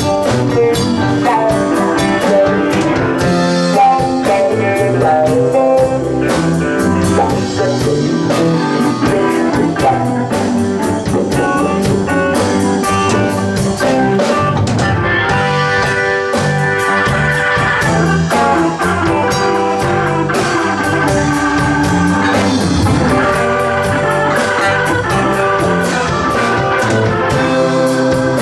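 Live rock band playing an instrumental passage: an electric guitar plays lead over a drum kit, with keyboards in the mix.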